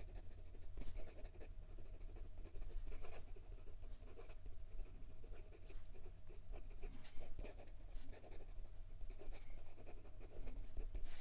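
Fountain pen writing quickly on notebook paper: a stiff, extra-fine, gold-plated steel nib scratching out a run of short strokes.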